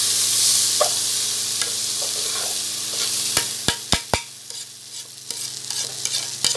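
Washed rice frying in chicken oil with sautéed garlic, onion and ginger in a stainless steel pressure cooker pot, stirred with a metal spoon: a steady sizzle with scraping. About three and a half seconds in, the spoon knocks sharply against the pot four times, and after that the sizzle is quieter, with light clicks.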